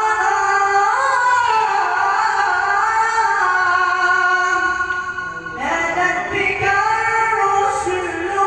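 Islamic ibtihal devotional chant: a high voice holds a long, ornamented phrase that bends up and down in pitch. It pauses briefly about five seconds in, then a new phrase begins with a rising slide.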